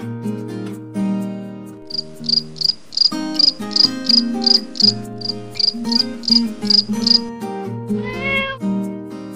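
Cricket chirping in an even run of about three to four chirps a second for some five seconds, over acoustic guitar music. Near the end comes a short rising meow from a cat.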